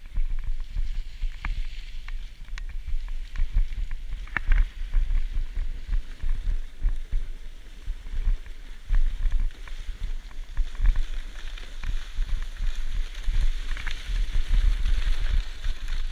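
Snowboard sliding and scraping over groomed snow, with wind buffeting the microphone in a gusty low rumble. A few sharp clicks occur about four seconds in, and the scraping hiss gets stronger near the end.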